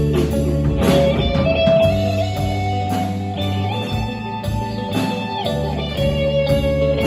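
Live rock band playing: electric guitars over bass and drums, with a lead line of long held notes that glide in pitch.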